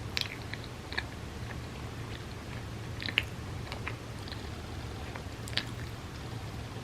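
Close-miked chewing of bagel with cream cheese: soft, wet mouth smacks and clicks, with a few louder ones about a fifth of a second in, around three seconds in and near five and a half seconds. A steady low hum runs underneath.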